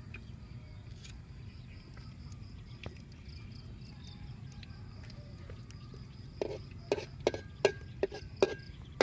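A metal spatula striking and scraping a steel wok over a wood fire: about seven sharp clinks in the last two and a half seconds, over a low steady rumble and a few faint ticks.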